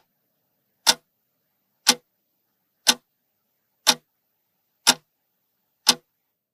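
Clock ticking, one short tick each second, counting down the seconds of a countdown timer.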